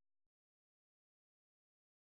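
Silence: a digital gap with no sound at all.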